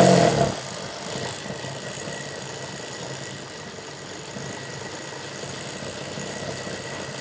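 Industrial sewing machine running steadily, stitching a line of stitches over a seam in cotton fabric, with a faint high whine above its even motor hum.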